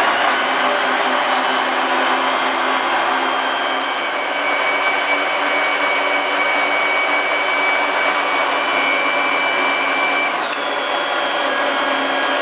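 Bajaj FX10 food processor's blender jar running, a steady motor whine over the churn of milk and apple pieces being blended into a milkshake. About ten seconds in the motor's pitch drops.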